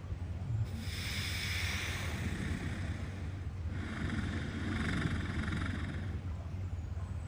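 Walrus snoring in its sleep: two long, rasping breaths, the first starting about a second in and the second near the middle, over a steady low hum.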